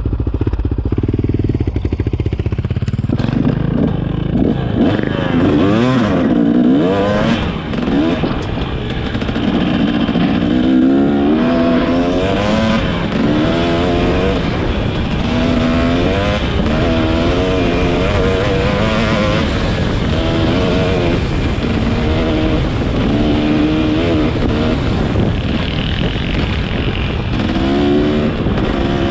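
Motorcycle engine accelerating and shifting up again and again while being ridden: its pitch climbs, drops at each shift, and climbs again, over wind rush.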